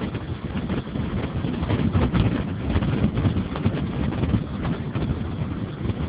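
Wind buffeting the microphone of a moving car, over engine and road noise, with frequent uneven crackles.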